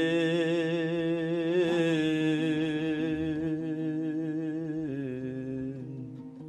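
A singer holds the long final note of a Kazakh folk song phrase with a wavering vibrato, stepping down to a lower note about five seconds in and fading away.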